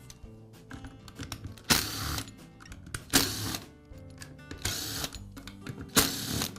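Background music with a steady beat: sustained tones and a bright hit about every one and a half seconds.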